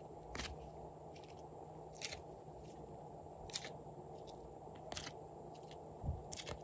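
Short crackling clicks, about one every second and a half, as moulded slime pieces are pushed out of a silicone bone mould and dropped into a glass dish.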